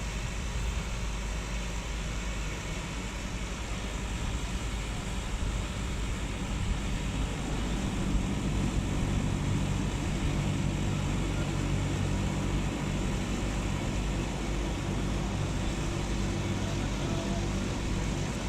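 A ship's diesel engine running steadily while the ship berths, a low drone with humming tones that swell louder about eight seconds in.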